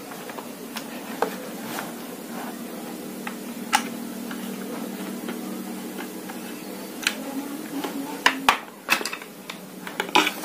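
Scattered clicks and light knocks of small metal parts being handled as a pump-action air rifle is taken apart, over a steady low hum. The knocks come closer together near the end.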